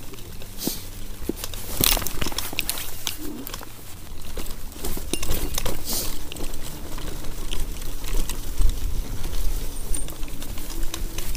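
Electric scooter ridden over a rough trail: irregular clattering and knocks from bumps, over a low wind rumble on the microphone.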